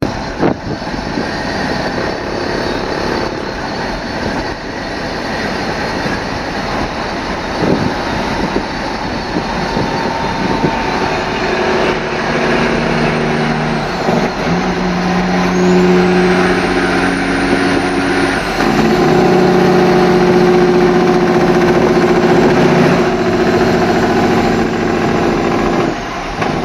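Kenworth W900's Caterpillar 3406B inline-six diesel running with its Jake brake (compression engine brake) engaged. The sound is loud and continuous, and its pitch holds, then steps to a new level a few times in the second half.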